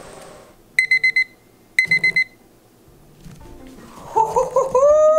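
Phone alarm going off, signalling that the smoking time is up: two bursts of rapid high-pitched beeps about a second apart. Near the end a person's long drawn-out voice comes in.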